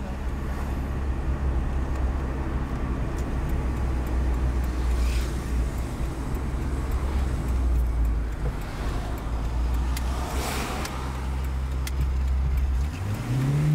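Toyota 4A-GE twin-cam four-cylinder engine in a KE70 Corolla, running as the car drives at a steady speed, with road noise as heard from inside the car. Near the end the engine note rises as the revs climb.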